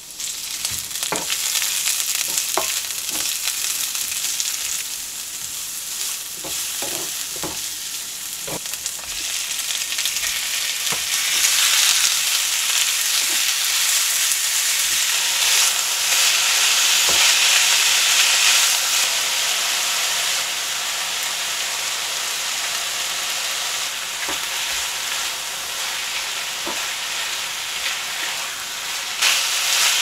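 Sliced onion and pork frying in a hot nonstick pan with a steady sizzle while being stirred with a wooden spatula. A few sharp clicks come in the first several seconds, and the sizzle grows louder about a third of the way through.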